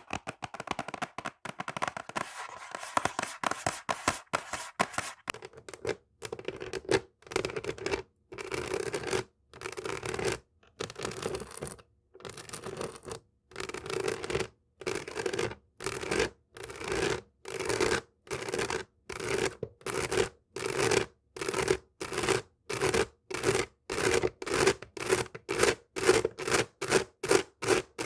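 Fingernails scratching a textured object. The scratching is fast and continuous for the first few seconds, then breaks into separate strokes with short gaps that come quicker toward the end.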